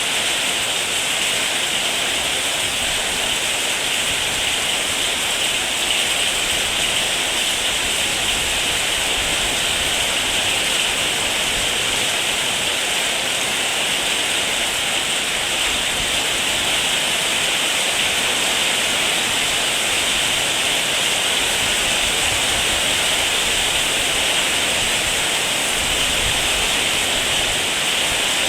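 Heavy rain falling steadily, an even hiss that does not change.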